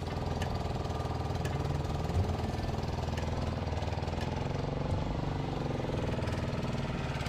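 Motorboat's engine running steadily as the boat cruises, a low continuous drone with a fast even chugging.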